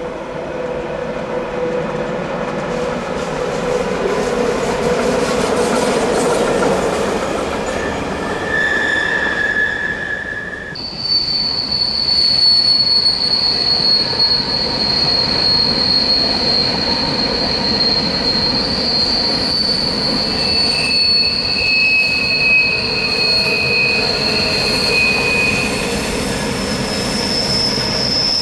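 A passing train's wheels squealing on a tight railway curve over steady rolling noise, the squeal shifting pitch: a lower squeal in the first few seconds, then from about eleven seconds in a high, steady squeal, joined by a second tone for a few seconds later on.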